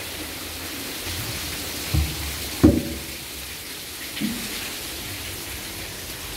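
Water falling in a curtain past an artificial rock grotto: a steady, rain-like hiss of splashing drops. A couple of dull thumps come about two seconds in, and a lighter one near four seconds.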